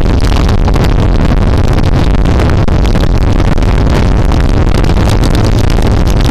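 A vehicle driving along at speed, its engine and road noise nearly covered by loud, steady wind buffeting on the microphone, with constant crackle.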